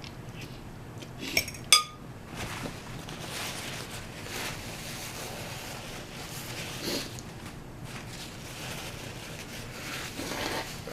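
A metal utensil clinks sharply against a dish twice, about one and a half seconds in, the second clink the louder and ringing briefly. Softer, uneven eating noises follow.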